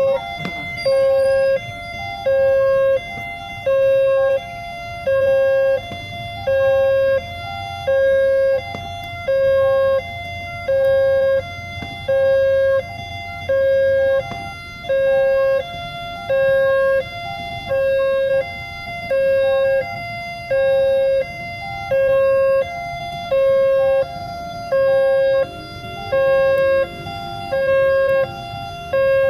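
Railway level-crossing alarm sounding: an electronic two-tone chime alternating evenly, about one cycle a second, the warning that a train is approaching or passing.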